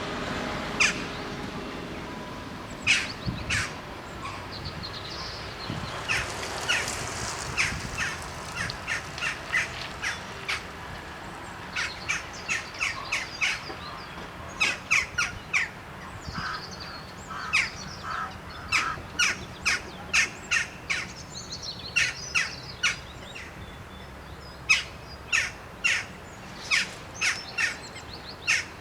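Crows cawing again and again in short, irregular runs of calls, with other birds chirping, over steady outdoor background noise.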